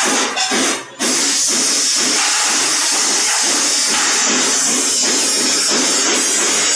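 Nutmeg-cracking machine running, a loud steady hiss with a grainy rattle of nuts and shell through it, dropping away briefly about a second in.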